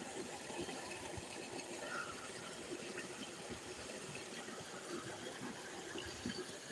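Water gushing steadily out of a concrete outlet and splashing into a muddy stream.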